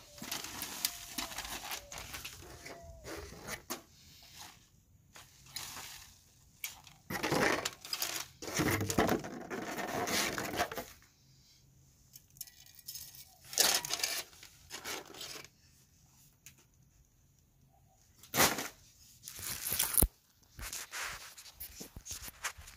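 Wrapping on a disposable grill being torn open and crinkled by hand, in irregular bursts with short pauses between them.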